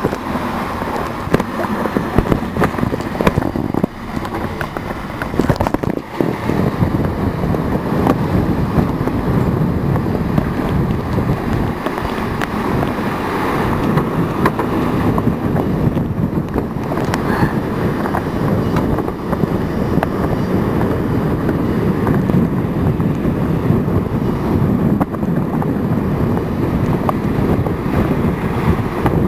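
Strong wind buffeting the microphone over the rush of water past the hull of a fast-sailing trimaran, a loud, steady roar with small knocks running through it.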